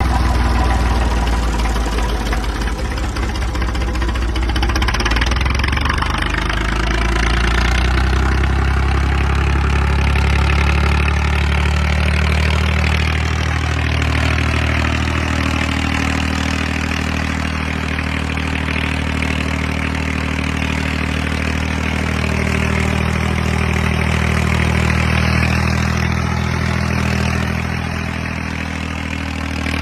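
Massey Ferguson 135 tractor engine running steadily, pulling a plough, its engine note shifting slightly a couple of times and easing a little near the end.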